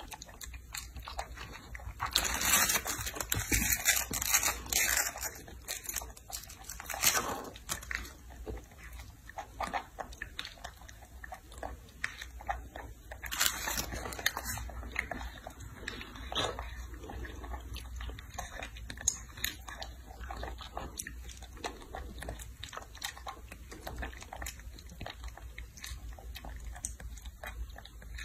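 Baby macaque biting and chewing strawberries close to the microphone: a run of small clicky mouth noises, loudest and busiest a few seconds in.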